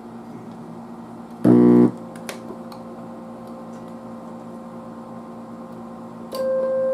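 Tube amplifier on the test bench putting out a steady hum, with a loud, brief buzz about one and a half seconds in. A faint steady test tone then comes through and turns much louder near the end as the signal is traced through the amplifier.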